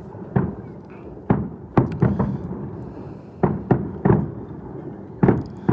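Fireworks shells bursting, about nine sharp bangs at irregular intervals, each trailing off in a short echo.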